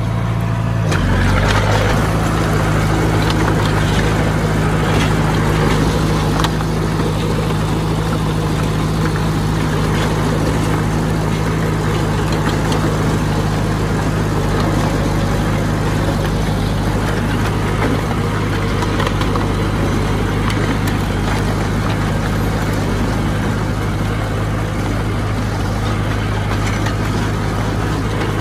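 Heavy construction machine's diesel engine running steadily, its note shifting about a second in.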